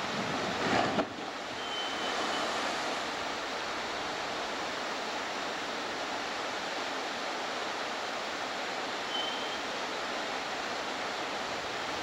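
Steady rushing noise of wind and water, with no engine tone in it. A brief louder surge just under a second in cuts off sharply.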